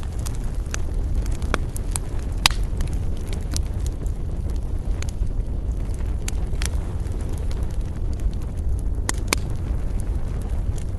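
Campfire burning: a steady low rumble with irregular wood crackles and sharp pops, a few of them louder, about two and a half seconds in and again near nine seconds.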